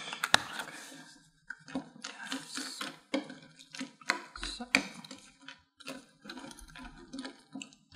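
Metal spoons clinking and scraping in small glass bowls of crunchy cereal, a run of light irregular clicks and taps, along with the plastic cap of a milk bottle being handled.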